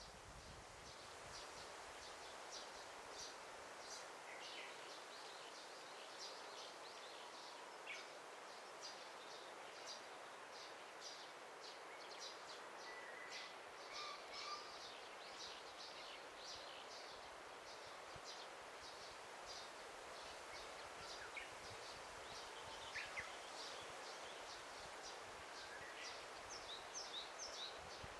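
Faint forest ambience: songbirds call throughout with many short, high chirps, now and then a brief whistled note, all over a steady soft hiss.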